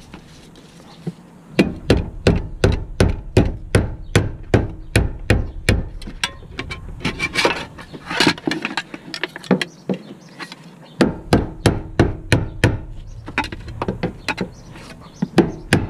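Rapid hammer blows on a chisel set against a 2003 Ford Escape's fuel pump retainer ring, knocking it round to loosen it. About three sharp strikes a second, starting a moment in, with a pause of a couple of seconds a little past the middle before the tapping resumes.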